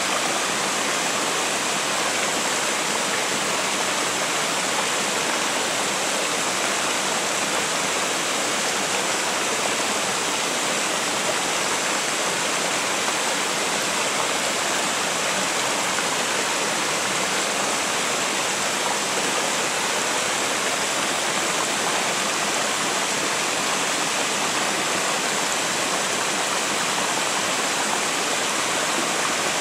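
Shallow mountain river pouring over a low weir in small falls into a pool: a steady, even rush of water with no change.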